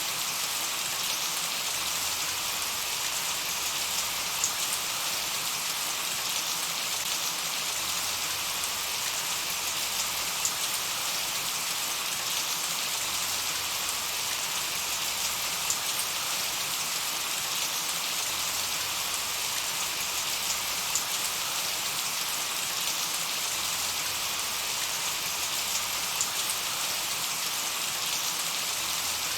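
Gentle summer rain falling steadily on a meadow: an even hiss with scattered individual drop ticks.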